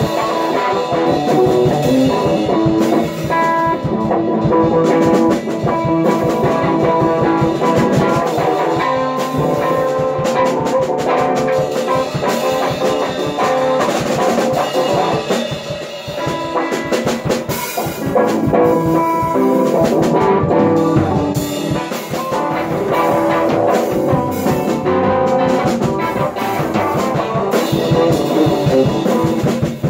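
Drum kit and guitar playing together in a loose live jam, the drums keeping a busy beat under the guitar.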